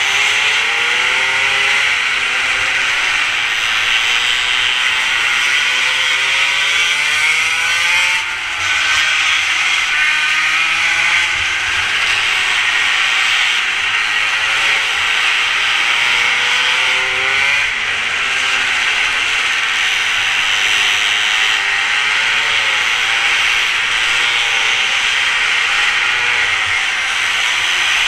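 Mini moto engine running hard, its buzzing pitch rising and falling as the bike is ridden lap after lap, with a short dip about eight seconds in.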